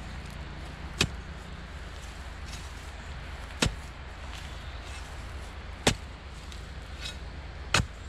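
A long-handled hoe chopping into dry, grass-littered soil four times, about one stroke every two seconds, digging around a small plant to loosen it from the ground.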